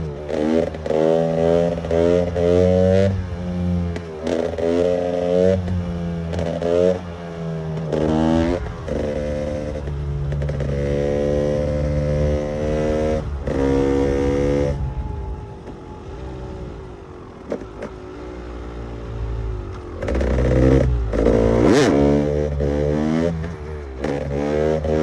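KTM EXC 300's two-stroke engine revving hard in repeated short bursts, the pitch climbing and dropping back again and again. In the middle it holds high revs for a few seconds, then falls to a lower, quieter note for several seconds before revving hard again near the end.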